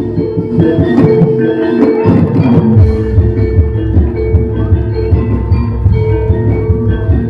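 Live gamelan music accompanying a jaranan dance: metallophones ring repeated notes over a steady low drum beat. The drum drops out for about a second, about two seconds in, then comes back.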